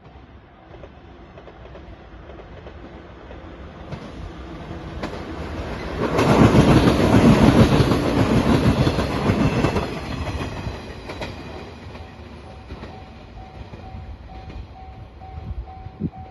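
A train passing over a level crossing, its wheels clattering over the rail joints, growing louder to a peak about halfway through and then fading. The crossing's warning bell rings in a steady pulse of about two strokes a second; it is drowned out while the train goes by and comes back clearly near the end.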